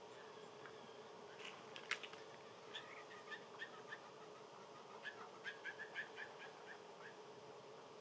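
Short, high chirps from a small bird or critter, in two irregular runs, the second quicker, with a single sharp click about two seconds in, over a faint steady background hum.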